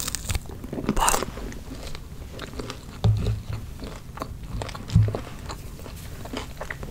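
Close-miked eating: food being bitten and chewed with crisp crunches and small wet mouth clicks, the loudest crunch about a second in, and two dull low thumps near three and five seconds in.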